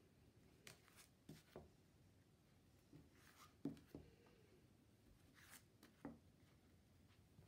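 Sleeved oracle cards being turned over by hand and laid down on a cloth-covered table: faint scattered taps and clicks with a couple of brief sliding swishes.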